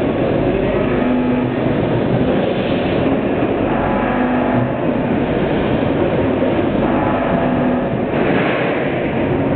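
Multihead weigher running while shredded cheese is fed onto it: a steady mechanical rumble from its vibratory feed pans and conveyor, with a low hum that swells every few seconds.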